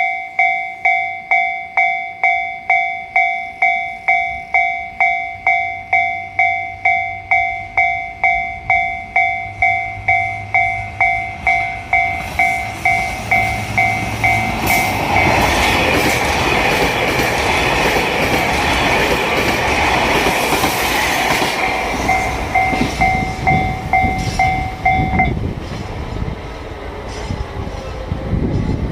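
Japanese level-crossing warning bell dinging steadily at about two and a half strokes a second. About halfway through, a JR Hokkaido KiHa 261 series diesel limited express passes at speed, its rush and wheel clatter over the rail joints drowning the bell. The bell stops about three quarters of the way through as the crossing clears.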